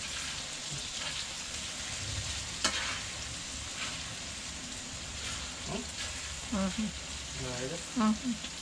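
Sliced bitter melon and shrimp frying in a pan, a steady sizzle as they are stirred, with one sharp tap of the utensil against the pan about two and a half seconds in.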